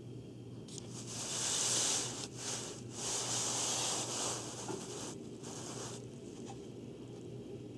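Scraping, rubbing handling noise as the recording phone is moved and brushes against surfaces, over a steady low hum.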